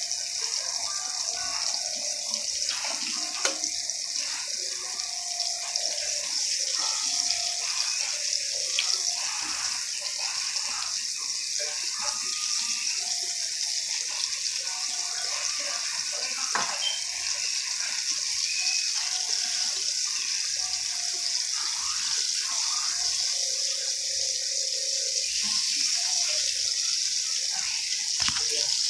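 Food sizzling in a frying pan, a steady high hiss that runs on without a break.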